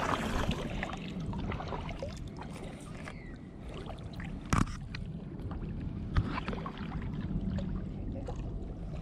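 Water splashing and sloshing in the shallows as a hooked fish is played and scooped into a landing net, with scattered clicks and knocks of rod, reel and net handling. Two sharper knocks stand out, about four and a half and six seconds in.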